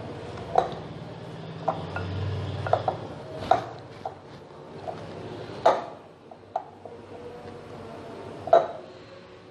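Hands punching down and kneading risen yeast pizza dough in a glass bowl to knock the air out of it, with about ten irregular sharp knocks of the glass bowl as it is gripped and shifted; the loudest knock comes near the end.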